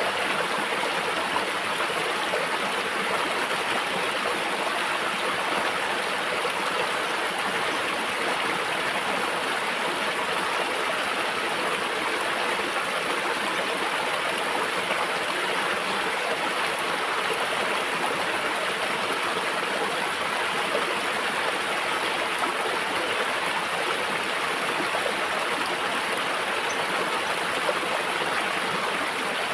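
Shallow stream flowing steadily over rocks, a continuous even rush of water.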